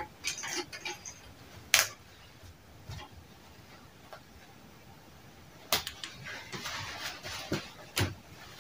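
A few sharp clicks and knocks from work on a tailoring table, the loudest about two seconds in and another near six seconds, with light rustling and more clicks near the end.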